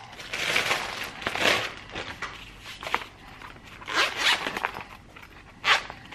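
Zipper on a fabric tool case being pulled open around its edge in several separate rasping pulls.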